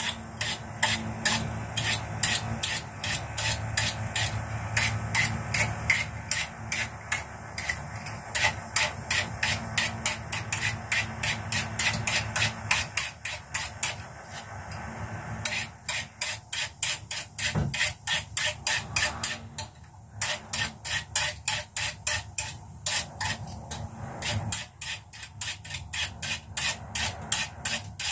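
Vegetable peeler scraping the skin off a lotus root: quick, rhythmic rasping strokes, about three a second, with a few short pauses.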